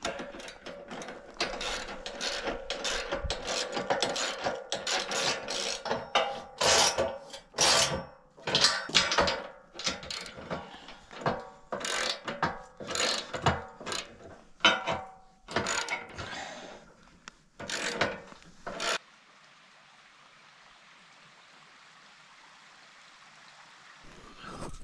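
Metal ratcheting clicks and scraping as the log clamp attachment is fitted and tightened onto a Woodland Mills HM126 sawmill's galvanized steel track: a dense run of clicks, then slower separate strokes, stopping about 19 seconds in. The last few seconds hold only a faint steady hiss.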